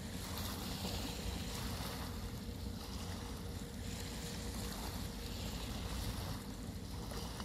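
Small waves lapping on a rock and shingle shoreline over a steady low rumble, with wind on the microphone.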